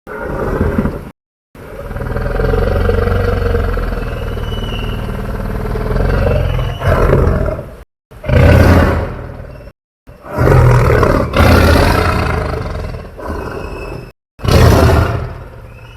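Homemade dinosaur roar sound effects: a series of about five deep roars of differing length, each ending in an abrupt cut to silence, the longest lasting about six seconds.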